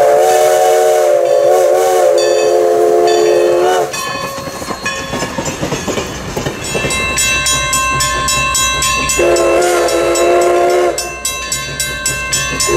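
Steam whistle of Everett Railroad No. 11, a 2-6-0 Mogul steam locomotive, blowing a long blast as it approaches, then the passenger coaches rolling past with wheels clicking over rail joints and a thin high squeal. The whistle blows again about nine seconds in and starts once more right at the end.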